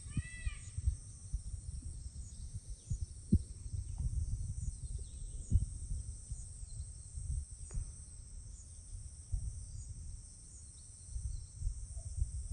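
Outdoor nature ambience: a steady high-pitched insect drone runs throughout, over low irregular rumbling and thumps. A bird's quick repeated chirping call breaks off about a second in.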